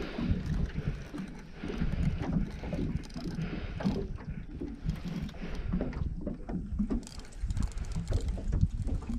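Wind buffeting a GoPro microphone in low, uneven gusts, with a man's heavy breathing coming and going every second or so as he strains against a hooked fish on a bent rod.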